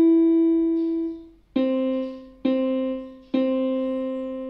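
Yamaha portable keyboard in a piano voice playing single notes: a held E rings and fades, then C is struck three times, the third held longer as it dies away.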